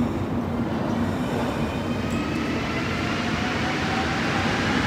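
Azur (MPM-10) rubber-tyred metro train accelerating: its electric traction motors give a whine that starts about halfway through and rises steadily in pitch, over a steady low rumble.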